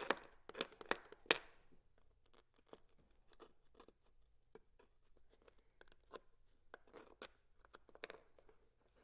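Single-edge razor blade scraping the old finish and guide-wrap thread off a bamboo fly rod section. A few sharp, crackly scrapes come in the first second and a half, then fainter scratches and ticks.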